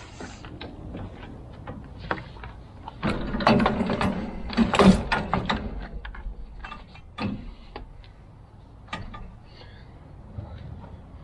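Clicks and metal clanks of hand tools and steel rack parts during assembly, loudest in a cluster of knocks about three to five seconds in.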